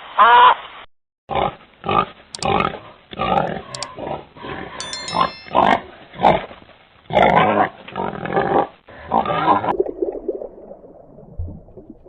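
Pig oinking and grunting in a rapid run of short calls, several a second, that stops near the end.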